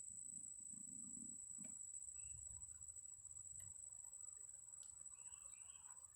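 Near silence: a steady faint high-pitched whine and a few soft ticks.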